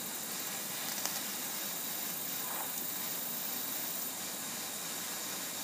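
Propane torch flame burning with a steady hiss.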